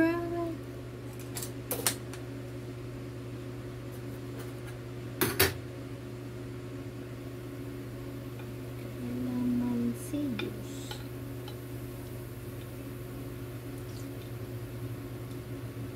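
Kitchenware clinking at a sink: a light clink about two seconds in and a louder, sharp clink about five seconds in, over a steady low hum.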